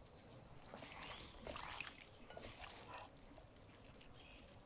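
Faint rattling of a spice shaker as dry poultry rub is shaken onto raw chicken wings in a glass bowl, with light scattered clicks.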